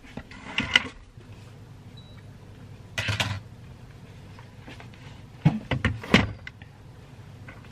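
Handling and movement noises close to the microphone: rustles and knocks in three short clusters, about half a second in, around three seconds in, and again near six seconds, as someone moves about a small room and settles in front of it.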